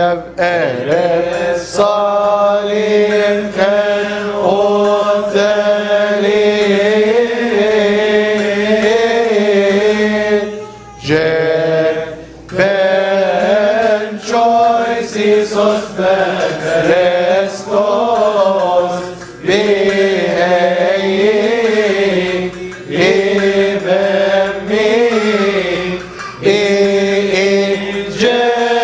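Coptic Orthodox liturgical chant: a melismatic vocal line with long held notes that waver and turn in pitch. It pauses briefly a few times between phrases.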